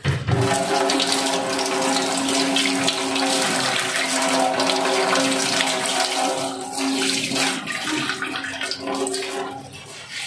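Kitchen tap turned on and water running in a stream over a bunch of lemongrass leaves into a stainless-steel sink, with a steady ringing hum of a few pitches under the splashing. The flow fades and stops near the end as the tap is shut.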